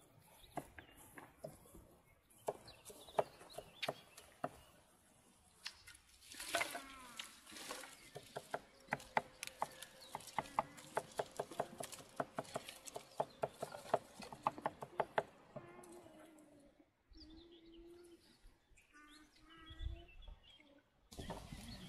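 Knife chopping on a wooden board: scattered taps, then a quick steady run of about four strokes a second through the middle. Birds call, and a dove coos near the end.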